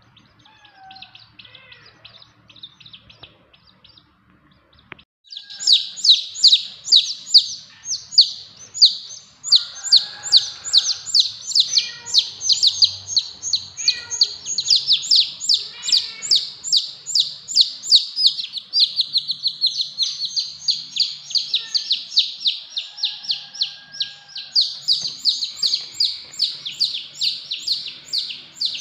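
Fast, unbroken high-pitched bird chirping, several chirps a second, starting suddenly about five seconds in and running on steadily; before that only faint scattered sounds.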